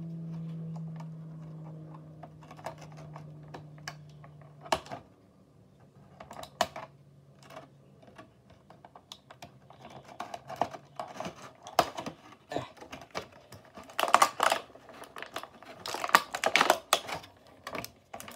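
Plastic toy packaging being handled and pried at to free a Bakugan figure: a run of small sharp clicks and crackles, sparse at first and coming in dense clusters in the second half. A low steady hum fades out over the first few seconds.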